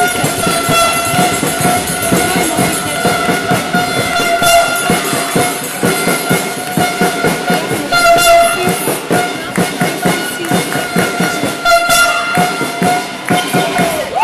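Handball game sounds in a sports hall: a steady high tone is held throughout, over many sharp knocks from the ball and players on the court.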